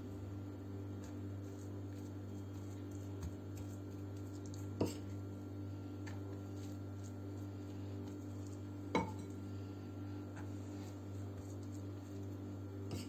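A metal spoon clinks sharply against a glass bowl twice, about five and nine seconds in, with a few fainter taps and soft scraping as crumbly cheese filling is scooped out and spread. A steady low hum runs underneath.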